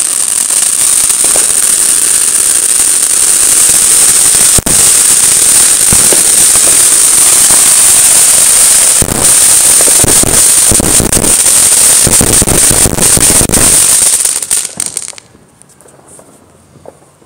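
Ground fountain fireworks spraying sparks with a loud steady hiss and dense crackling, the crackling thickest in the second half. The fountains burn out about fifteen seconds in and the sound drops away suddenly.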